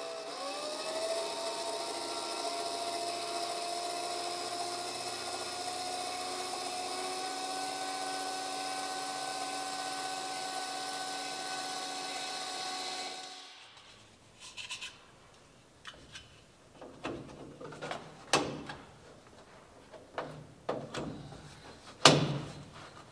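A small electric motor spins up with a quickly rising whine, runs at a nearly steady pitch for about thirteen seconds and stops suddenly. Scattered taps and knocks follow, with one sharp knock near the end the loudest.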